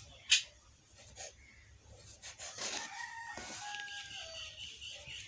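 Kitchen knife cutting the crusts off bread on a wooden chopping board: scraping strokes and a sharp knock of the blade on the board about a third of a second in, the loudest sound. In the second half, a rooster crowing in the background, its pitch stepping down.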